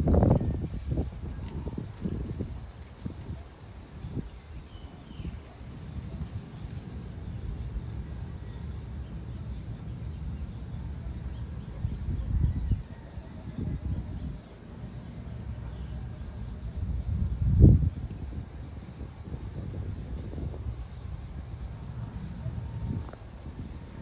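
Steady high-pitched chorus of insects, with gusty wind rumbling on the microphone now and then, strongest about three-quarters of the way through.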